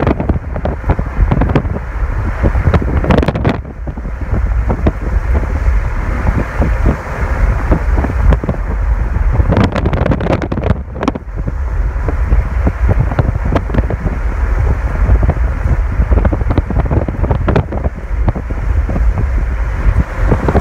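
Heavy wind buffeting the microphone of a phone filming from a moving car, over the low rumble of the car on the road, with frequent irregular gusts.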